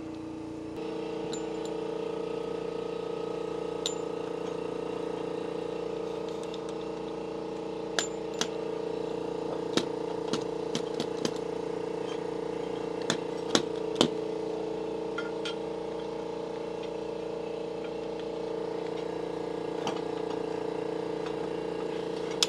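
A machine running steadily with a constant hum, its tone shifting slightly just under a second in. A few sharp metallic clinks of tools on metal come between about eight and fourteen seconds in.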